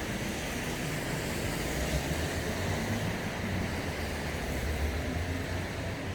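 Steady heavy rain, with wind buffeting the microphone in an uneven low rumble.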